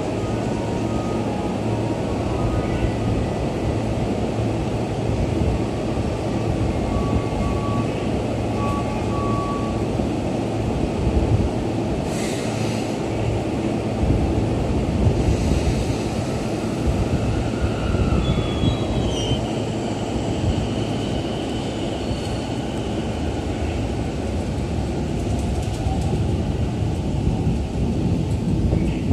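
Toei 10-300 series electric subway train pulling out of the station, its wheels and running gear rumbling steadily on the rails, with a short run of high beeps about a quarter of the way in and a whine rising in pitch as it gathers speed.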